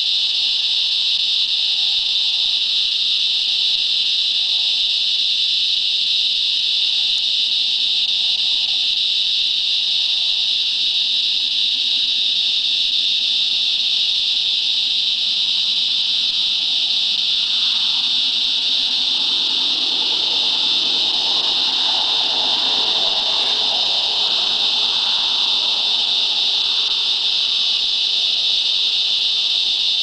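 Resonant cicadas (Tibicen resonans) calling from pine trees: one loud, continuous high-pitched drone that holds steady without a break.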